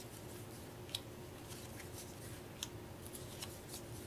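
Vintage cardstock game cards being handled against a wooden table: scattered light clicks and crackles as the cards are picked up and sorted in the hand, with two sharper snaps about one and two and a half seconds in, over a faint steady hum.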